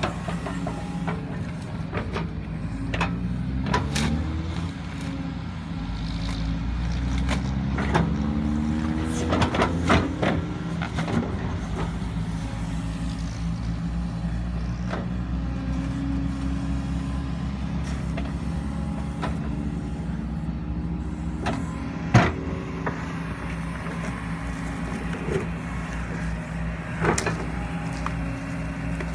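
Kobelco SK140-8 excavator's diesel engine running under hydraulic load while it works to push over a deep-rooted tree, revving up twice in rising pitch, with scattered sharp cracks and knocks and one loud crack about two-thirds of the way through.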